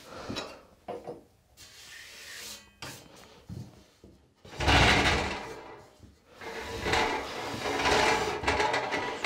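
A wood-burning stove being pushed across a wooden floor: a few light knocks, then loud scraping from about halfway in, and again for the last couple of seconds.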